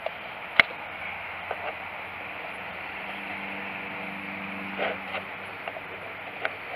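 Thin hollow-ground stainless knife blade shaving curls off a stick of fatwood held upright on a wooden board. There is one sharp click about half a second in as the blade bites and comes down on the board, fainter clicks here and there, and a short scraping stroke near five seconds, over a steady background hiss.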